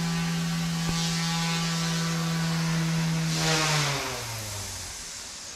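Small electric RC helicopter hovering with a steady rotor hum, then a short rush of noise about three and a half seconds in as it comes down onto the concrete floor, after which the hum falls in pitch and fades as the rotor winds down.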